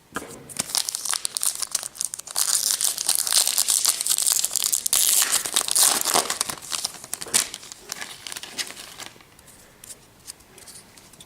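Foil wrapper of a baseball card pack being torn open and crinkled, a dense crackling that is loudest in the middle and fades out near the end.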